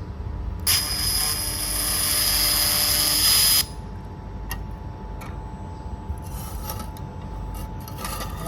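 Automatic laser welding machine at work: a loud hiss with a steady high whine runs for about three seconds, grows slightly louder, and cuts off suddenly. It is followed by a few sharp clicks and two short hissing bursts over a low machine hum.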